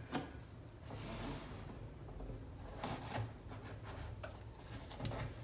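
Faint rustling with a few light knocks and clicks: packaging being handled while a coffee machine is unboxed.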